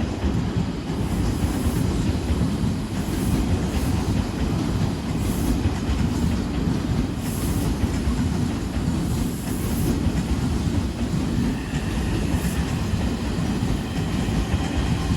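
Odakyu Line electric train running past, a steady noise of wheels on track, with a faint whine appearing near the end.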